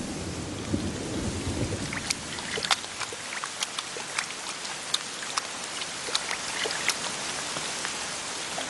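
Thunderstorm: a low thunder rumble dies away in the first second or so, then rain falls, with the sharp taps of single large drops landing from about two seconds in.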